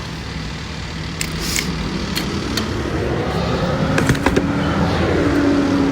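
Motor vehicle noise with a steady low hum and a few sharp clicks, and a vehicle sound that swells from about halfway through to near the end.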